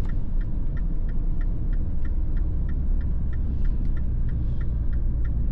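Car turn-signal indicator ticking at an even pace, about two to three clicks a second, over the low rumble of the engine and road heard inside the Mini Clubman's cabin.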